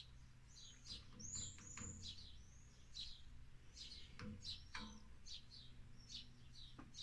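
Small birds chirping faintly, many short high calls in quick succession, over a low steady hum.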